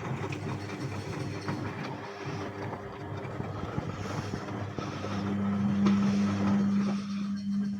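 Bauknecht WAS 1400 washing machine running, with an irregular splashing and rattling from the drum over a low electric hum; about five seconds in the hum grows much louder and holds steady.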